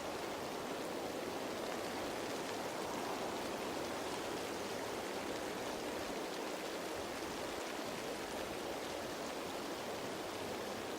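Steady, even rain falling on leaves, a dense patter with no single drops standing out.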